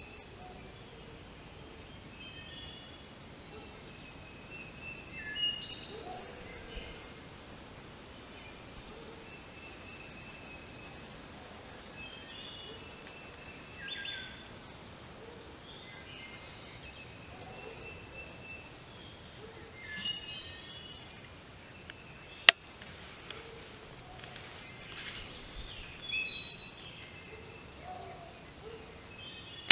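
Spring woodland birdsong: several songbirds calling in short, high chirps and phrases against a quiet background. A single sharp click is heard about three-quarters of the way through.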